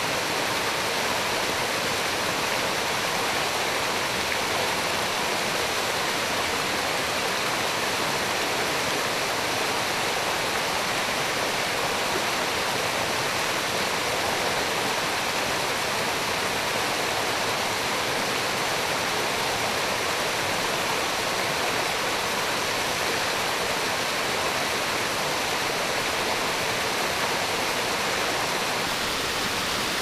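Mountain waterfall cascading down rocks: a steady, even rush of falling and splashing water.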